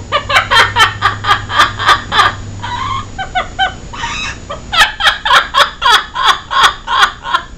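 A parrot mimicking human laughter: two runs of rapid 'ha-ha-ha' strokes, about four a second, with a short burst of chattering between them.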